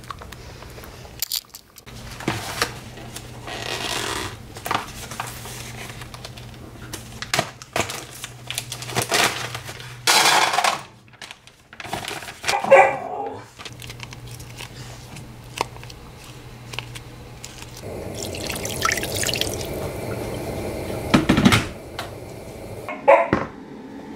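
Kitchen food-prep sounds: a plastic food package handled and cut open with kitchen scissors, water running at the sink, and a low steady hum under much of it.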